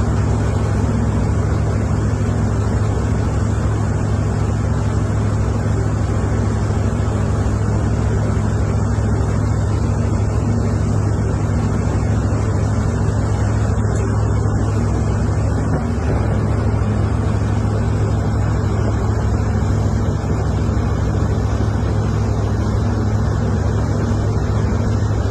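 A steady, loud low engine drone that runs unchanged throughout, with a rushing noise over it.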